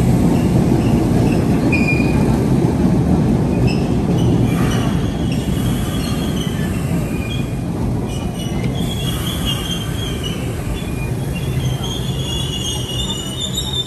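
MBTA subway train running along the rails: a heavy steady rumble that slowly fades, with intermittent high-pitched wheel squeal that grows stronger in the second half and is loudest near the end.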